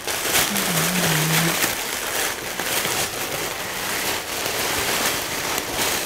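Tissue paper rustling and crinkling continuously as it is pulled open and pushed aside by hand. A brief low hum from a woman's voice about a second in.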